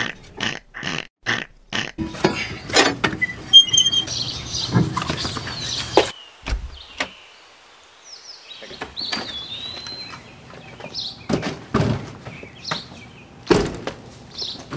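A run of evenly spaced metallic clicks as a scissor jack is cranked, then scattered clanks and knocks of a wheel being taken off and handled. Birds chirp faintly in the background.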